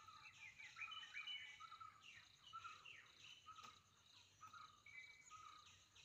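Faint chorus of small birds chirping and giving short falling whistles, over a steady high insect drone.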